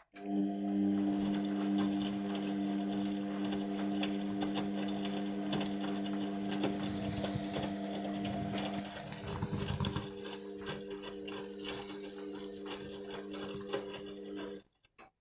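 Indesit washing machine running mid-wash: a steady motor hum with irregular clicks and knocks from the turning drum. The hum wavers about two-thirds of the way through, and everything cuts off abruptly just before the end.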